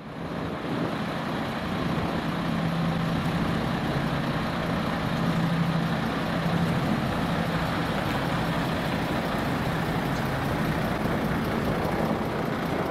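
Tractor unit's diesel engine running steadily as the truck drives slowly, towing a Smart car on a tow bar. There is a constant low hum with road noise, swelling in over the first second.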